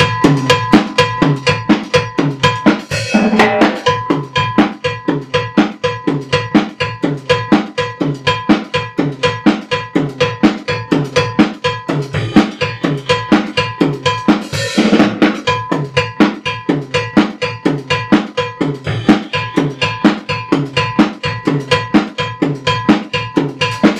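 Drum kit playing a fast, steady cumbia norteña groove: cowbell struck together with the bass drum, snare with hi-hat, hi-hat alone, and a tom hit with the hi-hat in each cycle. The cowbell rings over the whole beat.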